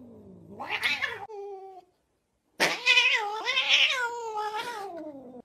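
A domestic cat yowling. A short meow is followed, after a pause, by one long, wavering, drawn-out yowl of about three seconds that slides down in pitch at the end.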